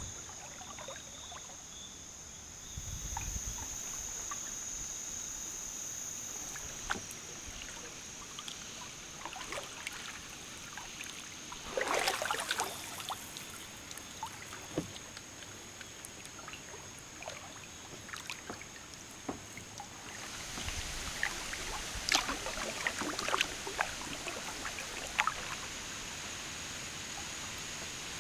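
Kayak paddling: the paddle blades dip and water drips and splashes off them, with one louder splash about twelve seconds in and splashes coming more often near the end. A steady high insect hum runs underneath.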